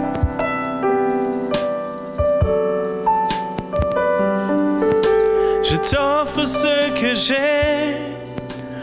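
Slow worship song: keyboard chords with a strummed acoustic guitar. From about six seconds in, a wordless sung line with vibrato comes in.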